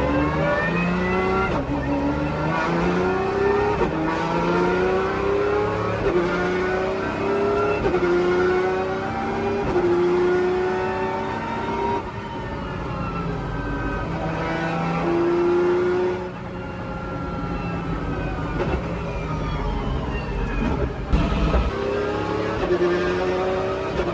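Pagani Zonda R's V12 engine under hard acceleration: the pitch climbs and then drops at each upshift, several times in a row. The engine note falls back about two-thirds of the way through, then climbs again near the end.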